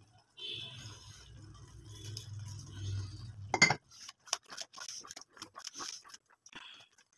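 A spatula scraping and knocking against the side of a stainless steel pot while thick curry gravy is stirred: a sharp knock about three and a half seconds in, then a quick run of short clicks and scrapes. A low steady hum runs under the first half and stops at the knock.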